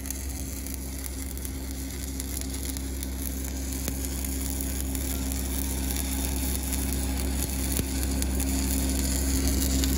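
Stick (shielded metal arc) welding with a 7018 low-hydrogen rod on steel pipe: the arc crackles and sizzles steadily over a low, steady hum, growing slowly louder.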